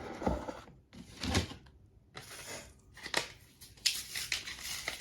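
Hands fitting AAA batteries into the plastic battery compartment of a toy transformation belt: short rustles of handling and several sharp plastic clicks.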